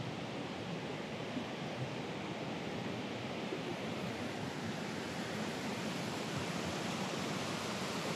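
Mountain stream rushing over rocks and small cascades: a steady rush of water that grows slightly louder about halfway through.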